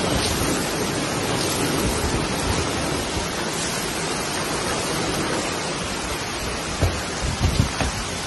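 Heavy monsoon rain pouring onto a paved lane, a steady hiss, with a few low thumps near the end.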